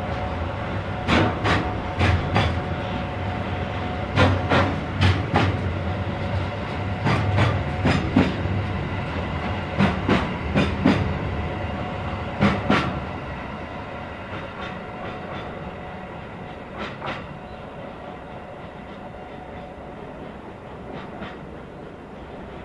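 Freight train of hopper wagons rolling through: the wheels click over rail joints in pairs every second or two over a steady rumble. After about thirteen seconds the sound grows fainter as the train moves away, with a couple of last clicks near the end.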